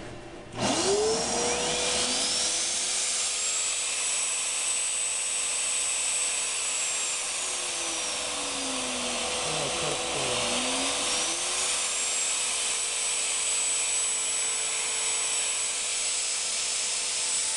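Sears Craftsman woodworking router switched on: its motor starts suddenly and spins up within a couple of seconds to a steady high whine over a loud rush of air. About halfway through, a high tone in the whine dips in pitch and then rises back to where it was.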